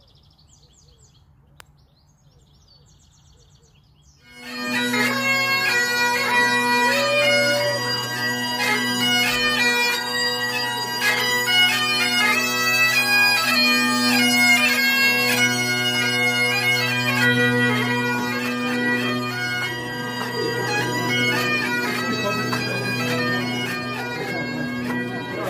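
Faint birdsong, then about four seconds in a Great Highland bagpipe starts up loud: steady drones under a moving chanter melody.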